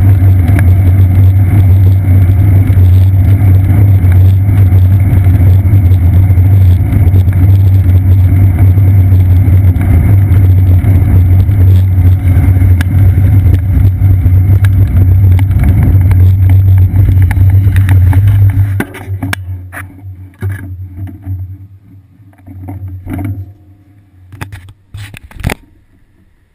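Steady, loud rumble of a bicycle being ridden on wet pavement, heard through a seat-post-mounted GoPro Hero 2 in its housing. The rumble cuts off about 19 seconds in as the bike stops, followed by scattered knocks and bumps as the camera is handled.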